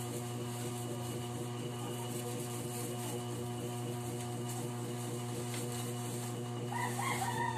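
Steady electrical hum made of several constant tones. Near the end, metal flan molds scrape and clink against the tray of a stainless-steel steamer as they are set in place.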